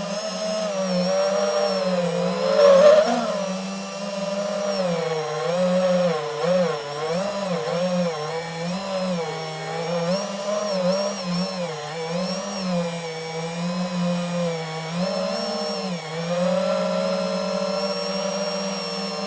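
DJI FPV drone's motors and propellers whining, the pitch wavering up and down constantly as the throttle changes, with a brief louder swell about three seconds in.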